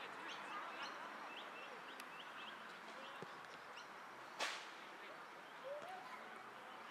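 Faint outdoor ambience with birds chirping, and one sharp thump of a soccer ball being kicked about four and a half seconds in. A brief rising call comes near the end.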